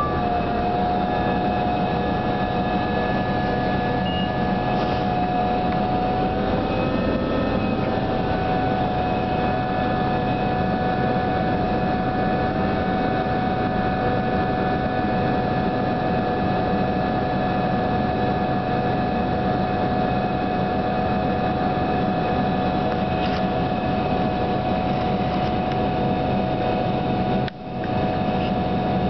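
New Flyer DE42LFA diesel-electric hybrid bus heard from inside while riding, giving an odd steady whine of several high tones over low running and road rumble. The pitch holds almost level, wavering briefly about seven seconds in. The sound cuts out for a moment near the end.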